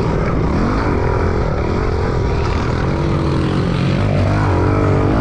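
Small 110cc pit bike engines revving on a dirt track, their pitch rising and falling as the throttle opens and closes, with more than one engine running at once.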